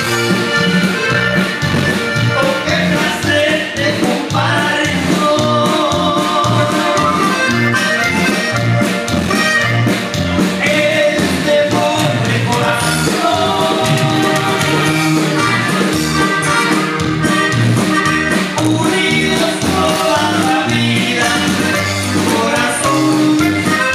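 Live norteño band playing: button accordion carrying the melody over bajo sexto strumming and an electric bass line, with a steady dance rhythm.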